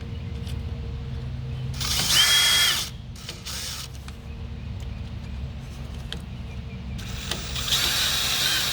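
Cordless drill/driver running screws into a car door's lock actuator in two short runs of steady motor whine: one about two seconds in, the other from about seven seconds on.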